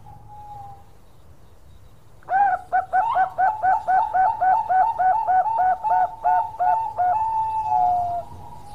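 Bangkok-type zebra dove (perkutut) singing. After a faint note at the start, it launches about two seconds in into a fast, even run of short, clipped coos, some three or four a second, and ends with a few longer drawn-out coos.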